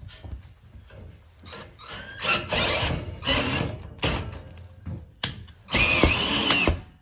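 Cordless drill driving self-tapping sheet-metal screws through a steel bed-lift rail into a steel wall stud, in several short bursts, the longest near the end with a whining tone as the screw cuts into the metal.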